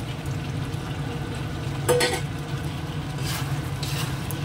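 Fried chicken pieces tipped into thick sauce in a kadai and stirred with a metal spatula, the sauce sizzling. One sharp, ringing metal clink about two seconds in, and spatula scrapes against the pan near the end.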